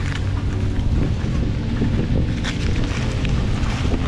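Wind rumbling on the microphone, with a few short crackles of brittle old paper being picked up and pressed flat by hand.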